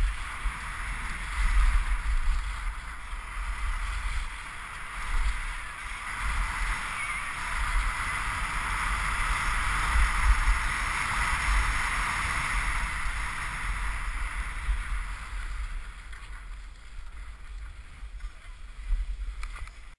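Skis hissing and scraping over packed snow during a downhill run, louder in the middle and easing near the end, with wind buffeting the GoPro's microphone as a low rumble.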